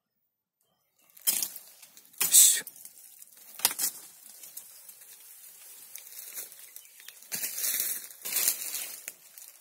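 Leaves and twigs rustling and scraping as the undergrowth is brushed through, in about five loud, short bursts with softer rustling between them.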